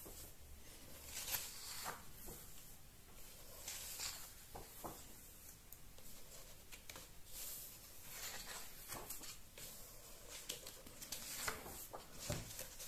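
Pages of a large hardcover comic-book album being turned one after another: faint paper swishes and rustles at irregular intervals.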